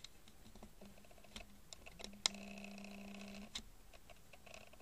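Faint light clicks and taps of a small plastic solar-light housing and an AA battery being handled. A sharp click about two seconds in is followed by a steady low hum that stops with another click about a second later.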